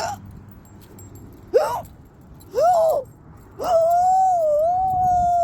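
A woman's involuntary hiccups: short, high-pitched squeaky vocal hiccups at the start, about a second and a half in and near the middle, then a longer drawn-out high vocal sound of about two seconds.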